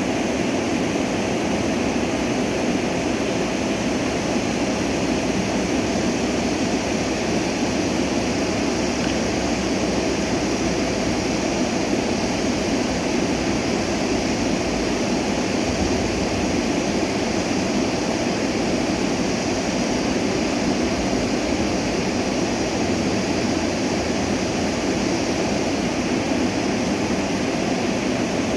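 Stream water rushing steadily, an even, unbroken rush of flowing water.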